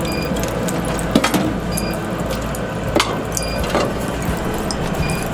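Split firewood knocking and clattering as it is loaded into a wood stove, with a few sharp knocks over a steady low rumble. A short high chirp repeats about every second and a half.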